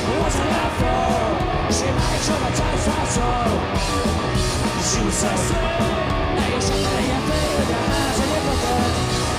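Live punk rock from a two-piece band: electric guitar and drum kit playing loud and steady through a passage without lead vocals, cymbal strokes cutting through.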